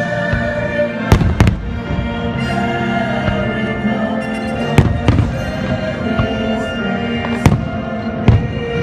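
Fireworks shells bursting in sharp bangs, about six in nine seconds, some in quick pairs, over the fireworks show's music.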